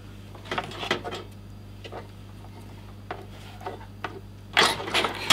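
Computer cables and plastic parts being handled on a desk: scattered clicks and rattles, then a louder stretch of rustling and clattering near the end.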